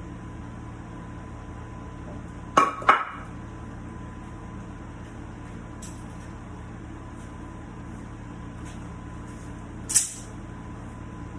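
Metal bar clamps clanking as they are taken off and set down: two quick ringing clanks about two and a half seconds in and one more near the end, over a steady shop hum.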